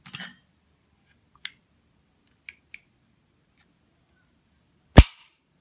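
Plastic flip-lid stopper of a Milton Thermosteel flask being handled: a few light clicks, then one sharp, loud snap about five seconds in.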